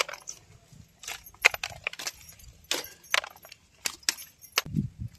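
Small green pakad figs being snapped off a leafy twig by hand and dropped into a woven bamboo basket: about a dozen short, sharp clicks and snaps at irregular intervals, with a few dull knocks near the end.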